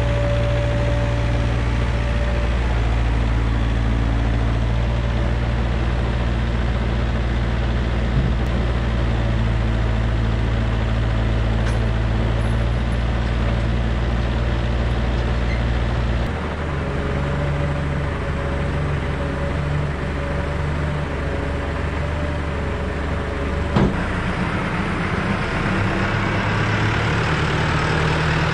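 Diesel engine of a Takeuchi TB250 mini excavator running steadily at low revs. About 16 seconds in, the sound changes abruptly to another diesel engine running, that of the Case IH tractor. There is a single sharp click about 24 seconds in.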